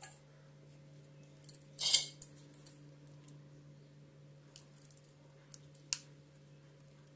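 Stainless steel mixer jar and steel bowl clinking together as thick ground urad dal batter is tipped and scooped out. There is one sharp metallic clink about two seconds in, then a few light taps later on.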